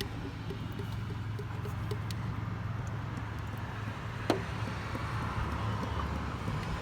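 Low steady hum like a vehicle running in the background, with one sharp click about four seconds in.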